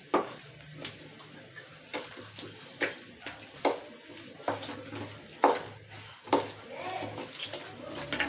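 Besan pakora batter being mixed by hand in a stainless steel bowl: sharp knocks of the bowl, a little under one a second, over the soft sound of stirring.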